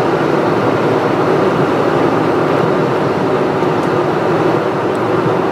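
Steady road and engine noise inside a car's cabin as it drives at speed.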